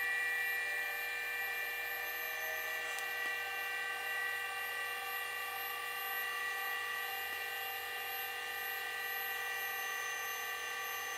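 Creativity ELF 3D printer's Z-axis stepper motors whining steadily as they drive the bed up its lead screws during auto-homing.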